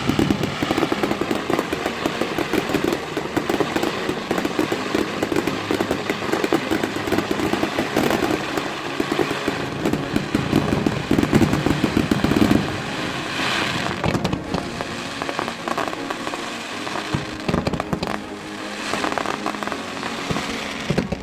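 Fireworks crackling in a dense, rapid string of small bangs for about twelve seconds, then thinning out to scattered pops.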